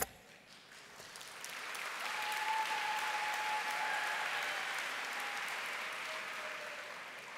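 Audience applauding, swelling after about a second, holding, then dying away near the end, with a single sharp click at the very start.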